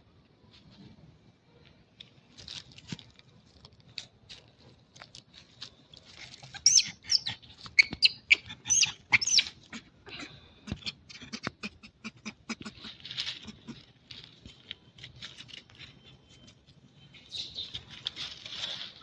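Monkeys squealing: a run of about half a dozen short, high-pitched calls in the middle, among scattered clicks and rustling.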